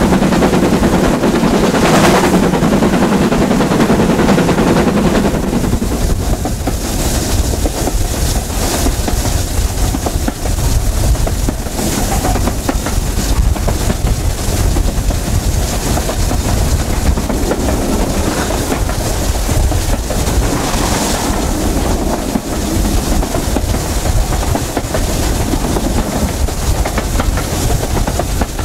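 BR Standard Class 7 'Britannia' Pacific steam train running, heard from the coach behind the locomotive: a steady rumble of wheels on rails, fuller and heavier for the first five seconds, then steadier with recurring bursts of higher hiss.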